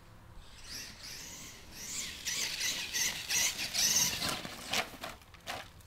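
Brushless electric motor and gear drivetrain of a converted Traxxas Revo RC monster truck, running on a 4S LiPo, whining at high pitch as the truck drives. The whine swells and is loudest from about two to four seconds in, with a few short clicks near the end.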